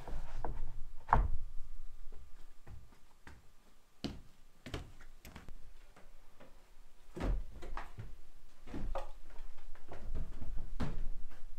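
Irregular wooden knocks and thuds from timber boards being handled and set down. The strongest knock comes about a second in, with more scattered knocks through the rest.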